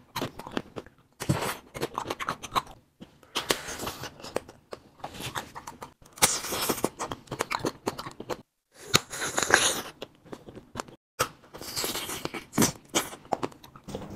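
Fruit-filled wax candies being bitten into and chewed, close to the microphone, in short irregular bursts broken by brief silences.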